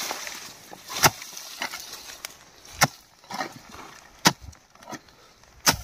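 A hand hoe chopping into hard, dry soil, striking four times about a second and a half apart, with faint scraping of earth between the blows.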